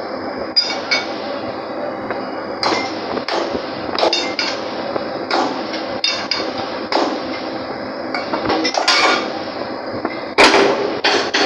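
Irregular metal clanks and knocks of steel pipe-handling tools being worked at the rotary table of a drilling rig floor, heard over steady rig machinery noise. About a dozen strikes at uneven spacing, the loudest near the end.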